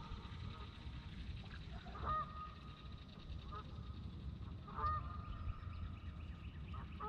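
A goose honking three times, a couple of seconds apart, each call a short held nasal note. A steady low rumble runs underneath.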